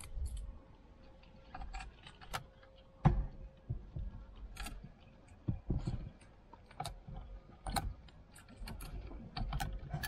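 Plastic wiring-harness connectors and loose wires clicking and rattling as they are handled and pushed into the back of a car stereo head unit: irregular sharp clicks and knocks, the loudest about three seconds in.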